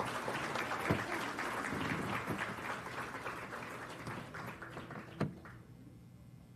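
A crowd applauding, the clapping slowly dying away over about five seconds, with a single thump near the end.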